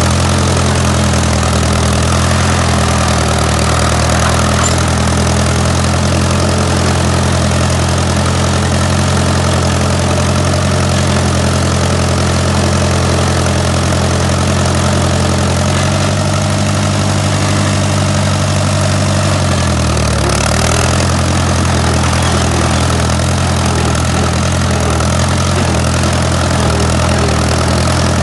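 Allis-Chalmers WD tractor's four-cylinder engine running steadily as the tractor is driven, its note shifting up about two-thirds of the way through, then dipping briefly and settling again.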